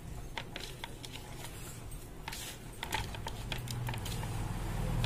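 Hands rubbing turmeric and salt into raw fish pieces on a plastic plate: soft wet squishing with scattered light clicks and taps of fingers and nails against the plate. A low steady hum comes up about three seconds in.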